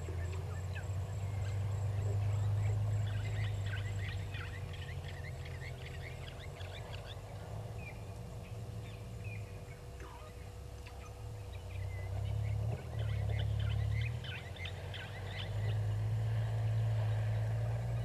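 Outdoor ambience: a low rumble that swells and fades, with two spells of many short, high bird calls, about three seconds in and again about thirteen seconds in. A faint steady hum runs underneath.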